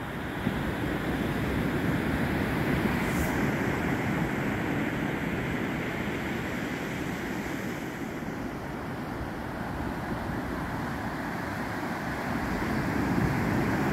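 Ocean surf breaking and washing up onto a sandy beach: a steady rush of waves that swells louder near the end.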